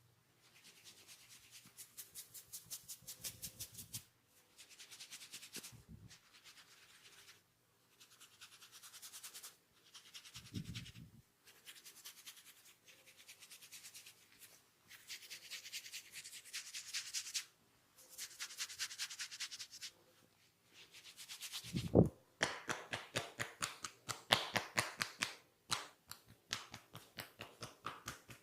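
Hands rubbing and scratching quickly through hair and over the scalp in an ASMR head massage, in rhythmic runs of a few seconds with short pauses between them. About three-quarters of the way through comes a single sharp thump, followed by faster, crisper tapping strokes.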